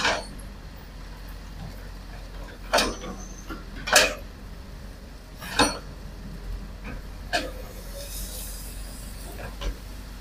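Hitachi hydraulic excavator working, its diesel engine running with a steady low drone. Six sharp clanks and knocks at irregular intervals punctuate it as the bucket digs and rakes earth at the top of a cliff face.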